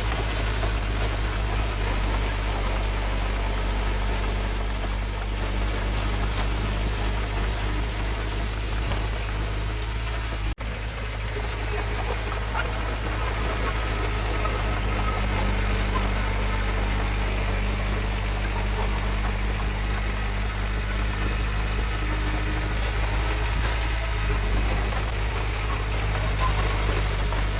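Heavy diesel engine of earthmoving machinery running steadily with a deep rumble, cut off for a split second about ten seconds in.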